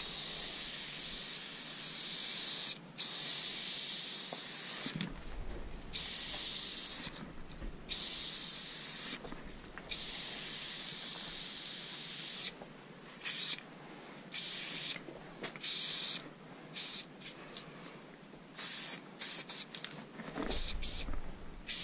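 Aerosol spray paint can spraying in a run of hisses: several long sprays of one to three seconds each in the first half, then shorter, quicker bursts of about half a second to a second in the second half.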